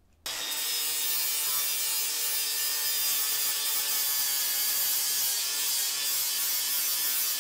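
Cordless angle grinder with a flap disc running and grinding steel steadily, dressing the upset tip of an old anvil's horn. The sound cuts in just after the start and then holds an even level.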